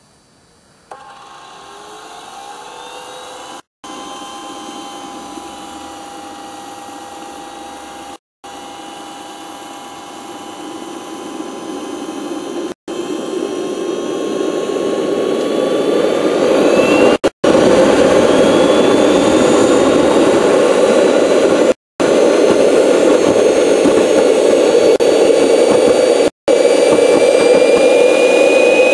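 Kingtech K140F model jet turbine starting up. About a second in, a rising whine begins and grows steadily louder over some fifteen seconds as the turbine spools up. It then runs loud and steady, its high whine climbing slowly in pitch near the end. The sound cuts out briefly several times.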